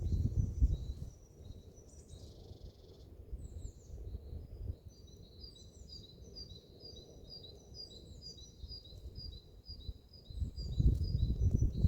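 A songbird singing: quick series of short, high chirping notes repeated over and over. Low rumbling noise comes up in the first second and again near the end.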